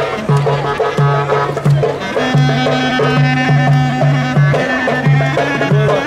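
Lively folk dance music from a wedding band, with a bouncing bass line, regular drum hits and a melody on top.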